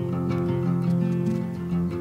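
Background music played on acoustic guitar, strummed and plucked.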